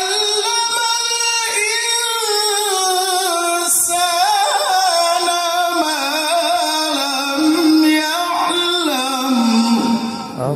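A man's solo melodic Qur'an recitation (tilawah), amplified through a microphone and the hall's loudspeakers. It is one long ornamented phrase, the voice sliding and trilling up and down and settling onto a lower held note near the end.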